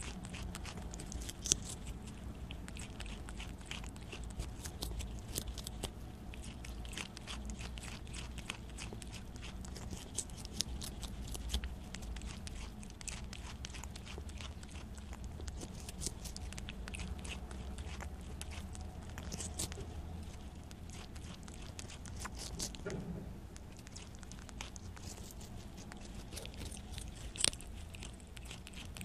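Prairie dog biting and chewing a piece of Korean melon (chamoe), picked up close by a lavalier microphone clipped to its fur: a continual run of small crunches and clicks, with a couple of sharper bites, over a low steady hum.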